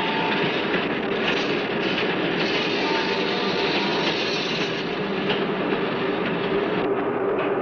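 Film soundtrack: a steady, dense rattling and hissing noise with a constant low hum, evenly loud throughout.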